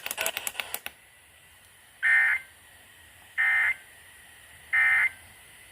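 Three short bursts of Emergency Alert System SAME data tones, the warbling end-of-message code, about a second and a half apart. They sound at the close of a Required Monthly Test broadcast on FM radio.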